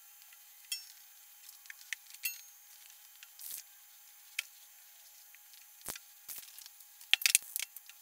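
Aerosol spray-paint can hissing in short, scattered bursts. The longest burst comes about three and a half seconds in, and the loudest cluster of bursts near the end.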